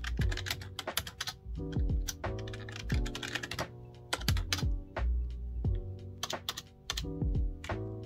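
Fast typing on a backlit computer keyboard: many quick key clicks in runs, with short pauses between them, over background music.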